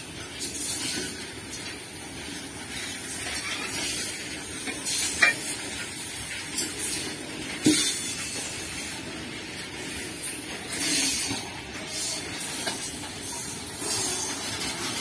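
Freight train of Indian Railways BOXN open-top wagons rolling past close by: a steady rumble and hiss of steel wheels on the rails, broken by irregular clanks and rattles from the wagons.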